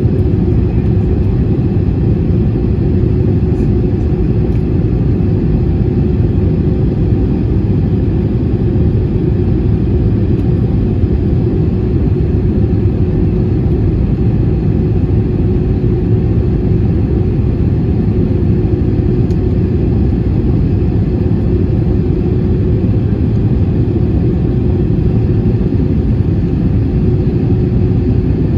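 Steady in-flight cabin noise of an Airbus A320-200 airliner: a constant low rumble of engines and airflow with a steady hum riding on top.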